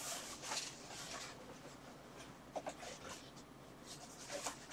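Hands rubbing and scuffing faintly on a large cardboard shipping box, with a few light scrapes near the start, in the middle and near the end.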